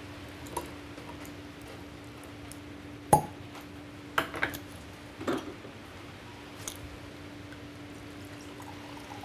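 A cork is pulled from a wine bottle with a corkscrew, with one sharp pop about three seconds in. A few lighter clicks and knocks follow as the corkscrew and bottle are handled, then white wine is poured into a stemmed glass near the end. A steady low hum runs underneath.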